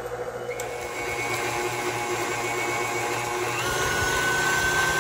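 Electric tilt-head stand mixer running, its flat beater turning through thick cookie dough in a stainless steel bowl with a steady motor hum. A higher whine joins about three and a half seconds in.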